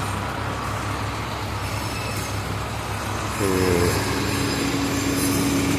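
A vehicle engine running steadily with a low hum and road noise. About three and a half seconds in, a steady higher tone joins it.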